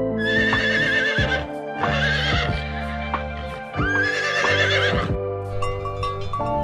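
A farm animal calls three times in quick succession, each a quavering, wavering call about a second long, over steady background music.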